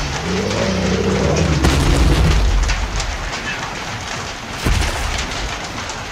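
Rain falling steadily, with a long rumble of thunder that swells over the first two and a half seconds and fades. A short low thump follows near the end.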